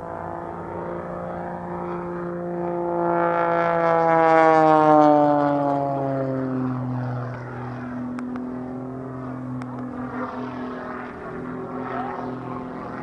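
Pitts Special aerobatic biplane's piston engine and propeller passing low. The drone swells to its loudest about four to five seconds in, falls in pitch as the plane goes by, then runs on steadily at the lower pitch.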